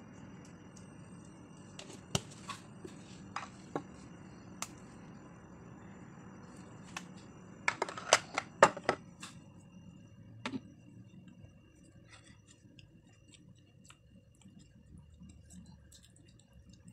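Kitchen handling noises while seasoning batter in a glass bowl: scattered sharp clicks and taps, loudest in a quick cluster about eight seconds in, then only faint rustling.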